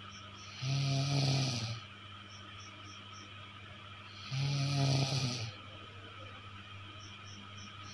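A sleeping person snoring: two snores in a steady rhythm, each about a second long with a low rattling buzz, one about a second in and one about four and a half seconds in. A steady low hum sits underneath between snores.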